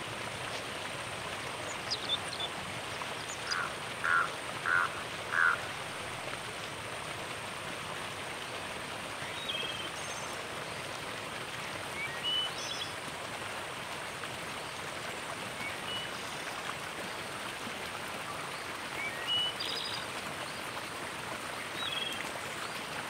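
Outdoor nature ambience: a steady water-like rushing noise with scattered short, high chirping calls, and a run of four short, louder calls about four seconds in.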